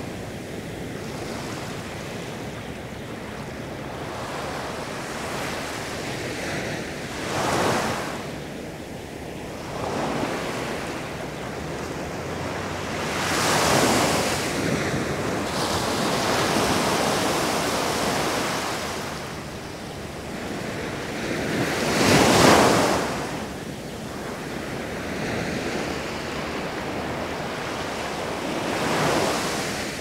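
Sea waves breaking on the shore and washing back, rising in slow surges every several seconds over a steady hiss of surf; the loudest wave breaks about two-thirds of the way through.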